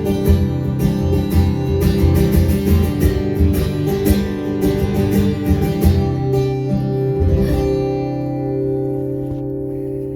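Live country song closing out on stage: acoustic guitar strumming over a steady beat, then a final chord held and ringing as it slowly fades over the last couple of seconds.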